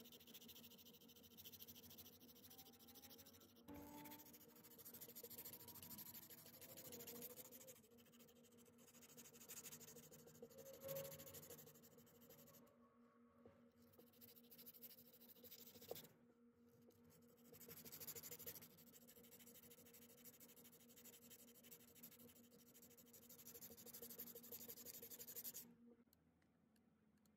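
Faint scratching of sandpaper rubbed by hand along a metal compass-protractor arm, in repeated stretches of strokes that stop abruptly shortly before the end.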